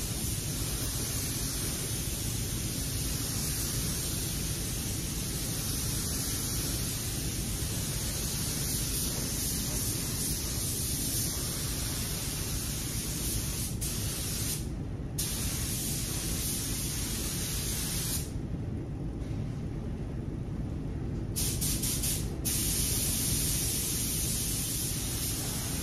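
Tuba TH101AG gravity-feed spray gun hissing steadily as it lays clear coat onto a bumper. The hiss stops briefly about halfway through and again for about three seconds later, as the spraying pauses.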